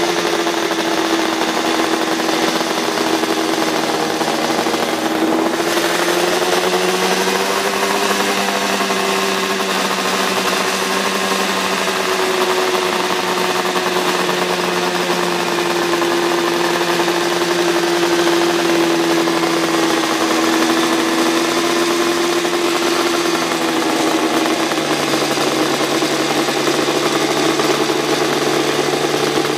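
Kawasaki KR500's square-four two-stroke racing engine running at steady revs on the stand. The pitch rises a little about five seconds in, eases back slowly, and drops a step near the end.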